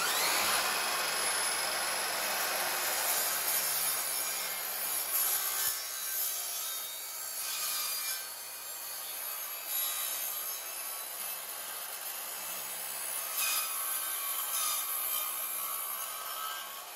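Evolution R185CMS-Li 18 V cordless sliding mitre saw with a multipurpose blade, spinning up with a rising whine and then cutting steadily through a thick wooden plank and the nails driven into it. The cut ends and the motor winds down near the end.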